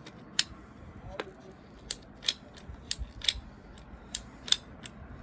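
A hand pipe cutter clicking as it cuts through plastic sprinkler pipe: a series of sharp clicks, roughly one every half second to second, as the handles are worked.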